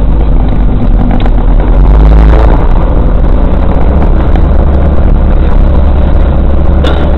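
A car driving along a bumpy dirt track, heard from inside its cabin: a loud, steady low rumble of engine, tyres and body, with a few faint knocks.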